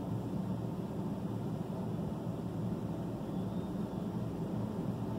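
Steady low hum of an idling vehicle engine, heard from inside a parked vehicle's cabin.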